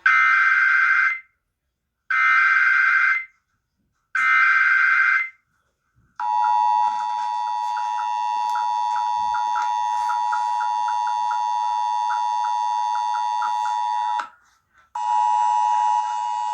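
Emergency Alert System tones opening an alert. First come three SAME header data bursts, each a buzzy digital warble about a second long, spaced a second apart. About six seconds in, the steady two-tone EAS attention signal begins; it breaks off for a moment near the end and then resumes.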